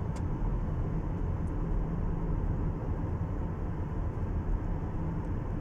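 A car driving on a highway, heard from inside the cabin: a steady low rumble of tyres and engine.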